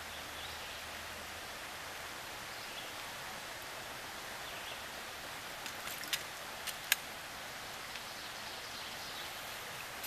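Steady outdoor stream hiss around an angler wading in the water, with a few sharp clicks about six to seven seconds in while a brown trout is handled in a landing net.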